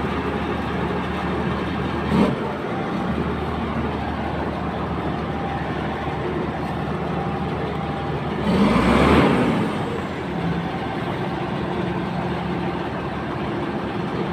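Komatsu D65P bulldozer's diesel engine running steadily, with a short knock about two seconds in and a louder rush of noise lasting about a second near the middle.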